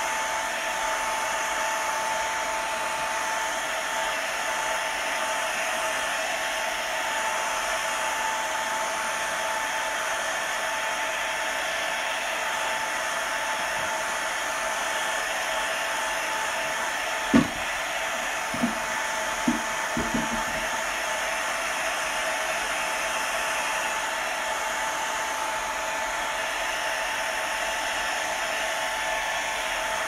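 Handheld hair dryer running steadily, a rush of air with a constant whine. A few short knocks come a little past the middle.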